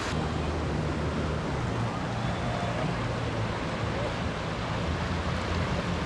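Steady roar of rushing water from a waterfall on the creek.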